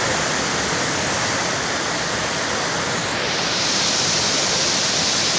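Mountain waterfall and stream rushing steadily, the rush growing brighter about three seconds in.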